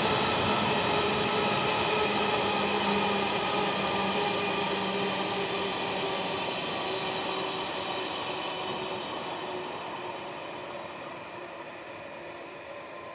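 Empty iron-ore wagons of a freight train rolling away along the track. The running noise and a few steady tones fade gradually as the train recedes.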